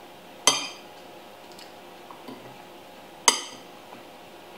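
A metal fork striking a plate twice, about three seconds apart, each a sharp clink with a short ring.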